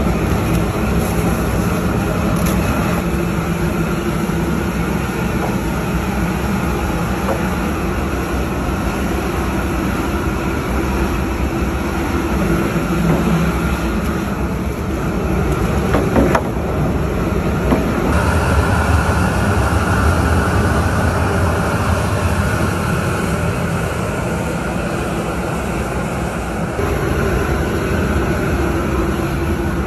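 Steady loud rushing rumble of a crawfish boil rig: the propane burner under a large pot of water at a rolling boil, with a long paddle stirring. The sound shifts twice along the way, about two-thirds through and again near the end.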